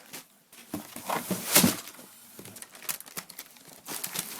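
Packaging being handled during unboxing: irregular crinkling and rustling as items are unwrapped, loudest about one and a half seconds in.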